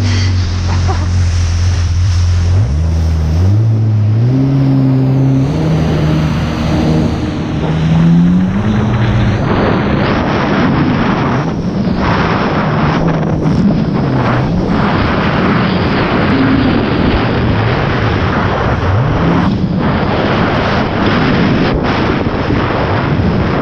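Jet ski engine speeding up, its pitch climbing in steps over the first several seconds, then running at speed with its note rising and falling. Water spray hisses and wind buffets the microphone throughout.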